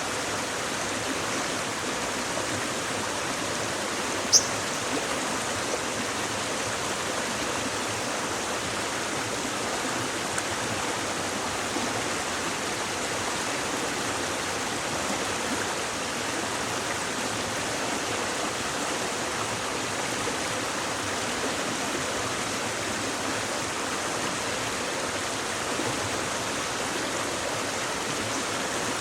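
Babbling stream running steadily, an even rush of flowing water. One brief high chirp comes about four seconds in.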